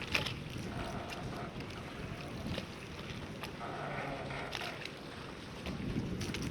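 Harbour ambience: a steady low rumble with scattered knocks and clicks, the sharpest just after the start.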